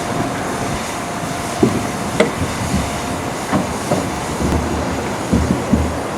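A train rolling along the track, its wheels clacking over rail joints with a few sharp metallic knocks, and a quick run of low thumps in the last couple of seconds.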